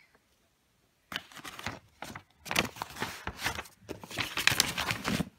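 Paper and packaging rustling and crinkling as the contents of an unboxed subscription box are handled. It starts about a second in and comes in irregular bursts that grow louder over the last few seconds.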